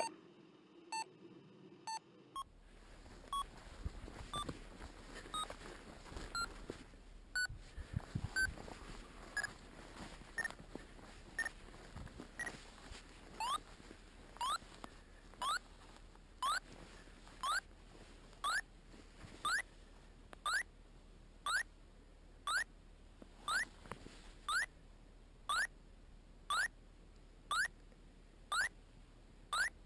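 Backcountry Access Tracker 3 avalanche transceiver in search mode, beeping about once a second as it receives a buried transceiver's signal. The short beeps turn into quick rising chirps about halfway through.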